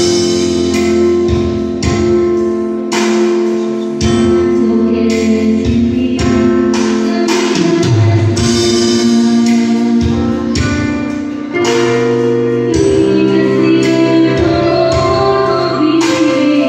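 A woman singing a gospel song into a microphone in long held notes, accompanied by an electronic keyboard with a steady beat.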